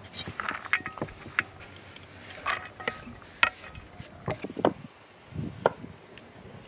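Diced onion being pushed by hand off a wooden chopping board into a metal tray: irregular scrapes, taps and knocks of wood and onion against metal.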